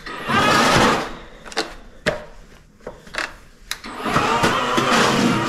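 Cordless battery-powered snowblower's electric motor spinning its auger in two runs, a short one at the start and a longer one from about four seconds in, with a few sharp clicks from the controls between them.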